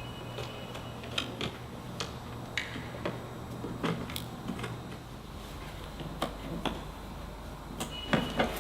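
Irregular light clicks and taps of a hand tool and screws being worked out of a plastic cowl cover, roughly two a second.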